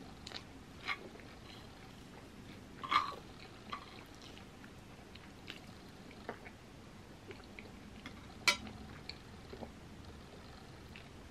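Close-up eating sounds of a person chewing soft, gooey red velvet cookie: scattered wet mouth clicks and smacks, with two louder clicks about three seconds in and again about eight and a half seconds in.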